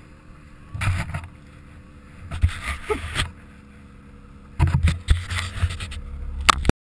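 A 2009 Ski-Doo Summit 800 two-stroke snowmobile riding through powder, heard from a camera mounted on the sled: a muffled ride noise with wind buffeting the microphone in three loud gusts, about a second in, around three seconds, and the longest from about four and a half seconds. The sound cuts off suddenly just before the end.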